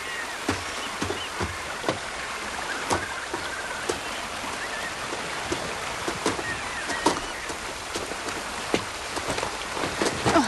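Shallow stream running, with irregular footsteps, splashes and snaps of twigs and leaf litter as people walk through the water and undergrowth.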